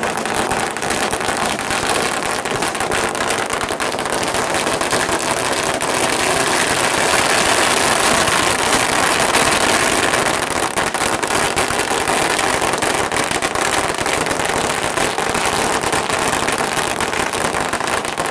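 Long strings of firecrackers going off in one continuous, dense crackle of rapid bangs.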